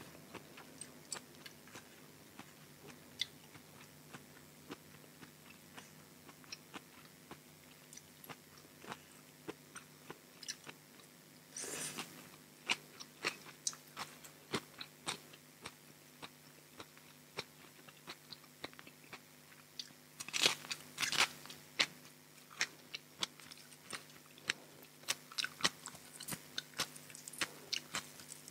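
Close-miked eating: a person biting and chewing crisp raw vegetables, with many small crunches and wet mouth clicks. Louder crunching comes about twelve seconds in and again around twenty to twenty-two seconds.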